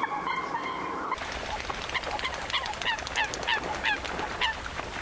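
Eurasian coots calling: a quick series of short, sharp calls sliding down in pitch, about three a second, starting about a second in, with water splashing as two coots fight on the surface.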